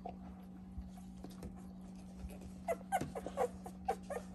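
Two-week-old puppies whimpering: after a quiet stretch, a quick run of short, high squeaks that rise and fall in pitch, starting about two and a half seconds in. A steady low hum runs underneath.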